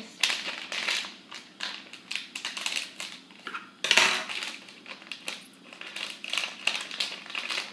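Crinkling and rustling of a foil blind-bag packet being cut with scissors and pulled open by hand. About four seconds in, metal scissors clatter down onto a hard countertop.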